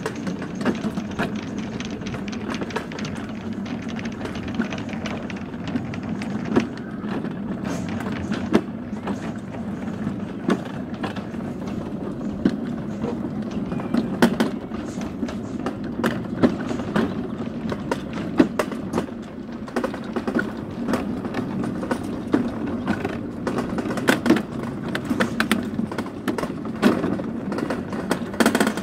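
Summer toboggan sled running down a metal trough track: a steady rolling rumble with frequent sharp knocks and rattles.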